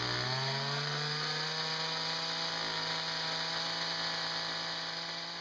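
Ryobi two-stroke string-trimmer engine, fitted as a small boat motor, running at high revs with its propeller churning water in a tub. The revs climb over the first second, then hold steady and fade slightly near the end. There is too little water over the prop, so it throws spray instead of biting.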